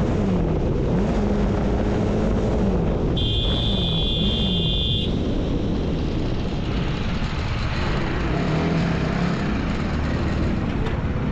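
TVS Apache RR 310 motorcycle's single-cylinder engine running on the move under heavy wind noise on a helmet-mounted microphone, its pitch rising and falling several times with the throttle. A high steady tone sounds for about two seconds about a third of the way in.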